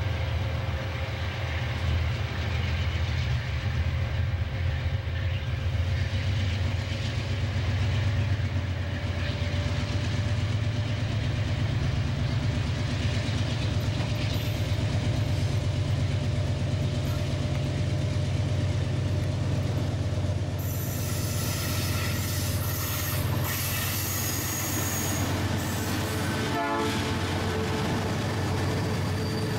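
Diesel-electric freight locomotives working a train, a deep steady engine rumble. About two-thirds of the way through, the sound turns brighter and harsher as clanking and wheel-on-rail noise join in with the locomotives close by.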